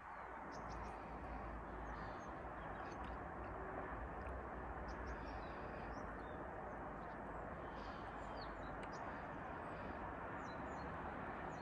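Outdoor morning ambience: a steady low background rush, with small birds giving brief scattered chirps and calls over it.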